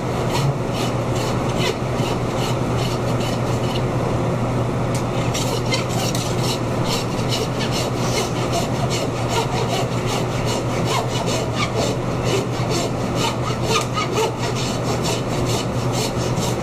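Butcher's hand bone saw cutting back and forth through the rib bones of a beef plate in repeated sawing strokes, which come faster from about five seconds in.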